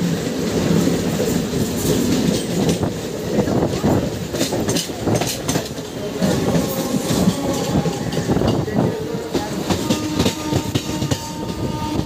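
Electric suburban local train running at speed, heard from its open doorway. Its wheels clatter over rail joints in rapid irregular knocks over a steady rushing noise, while another local train passes close alongside. A faint steady whine joins near the end.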